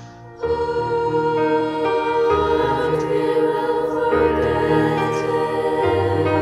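Women's choir singing sustained chords with piano accompaniment, coming in loudly about half a second in after a soft passage.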